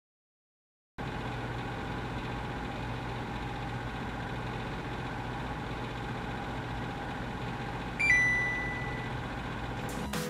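Convection oven running with a steady hum. About eight seconds in, the oven gives a single high electronic beep lasting about a second, the signal that it has finished preheating to 375°F.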